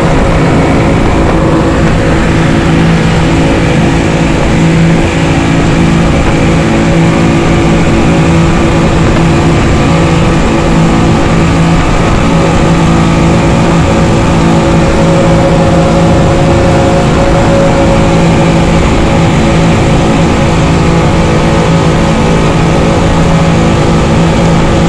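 A rigid inflatable boat's engine running steadily at speed, a constant hum under the rush of wind and water from the moving hull.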